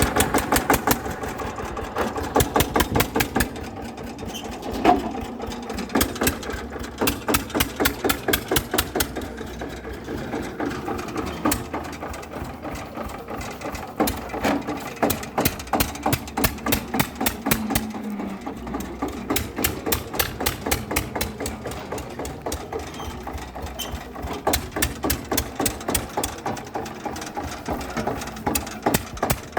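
Small motor of a DIY mini JCB running, with a rapid, regular mechanical clicking several times a second.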